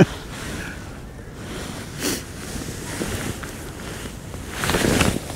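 Wind buffeting the microphone as a steady low rumble, with a short rush about two seconds in and a louder gust near the end.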